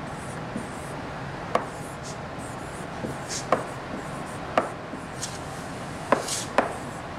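Marker writing on a whiteboard: sharp taps of the tip against the board, about a second apart and louder toward the end, with short squeaky scratching strokes in between. A steady low room hiss lies under it.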